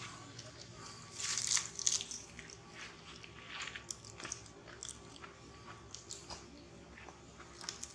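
Long-tailed macaque biting and tearing at a plastic snack wrapper: irregular crinkling and crunching, loudest a little over a second in, then scattered crackles.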